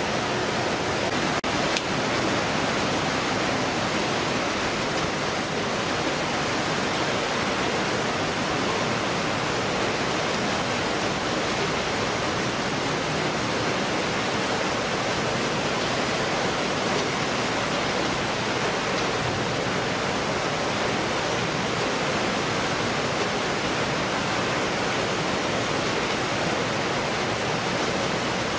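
Fish-processing line running: conveyors and machinery with water, heard as a steady, even rushing noise.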